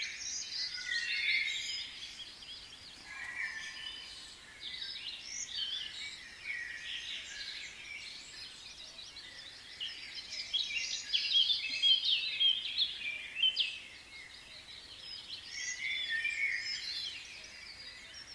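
Many small birds chirping and trilling together in a dense, continuous chorus, louder in waves.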